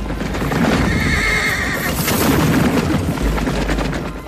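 Many horses galloping in a cavalry charge, a dense rumble of hooves, with a horse whinnying.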